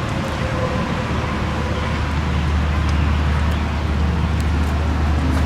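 Steady road-traffic noise: a constant low rumble with a hiss of tyres, swelling slightly near the end.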